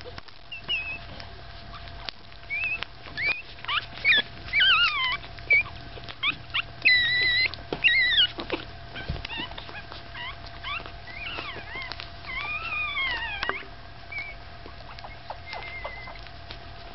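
Newborn Staffordshire Bull Terrier puppies, five days old, squeaking and whining in many short high-pitched cries that rise and fall while they nurse. The cries come thickest and loudest in the first half, then thin out and stop a few seconds before the end.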